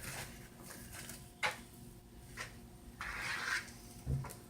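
A few light clicks and a short scrape of a spoon against a mixing bowl as cake batter is stirred by hand, with a soft knock near the end.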